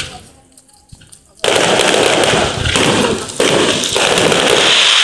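Fireworks going off: a single bang right at the start, then from about a second and a half in a loud, dense, continuous crackling of exploding bursts, dipping briefly a couple of times.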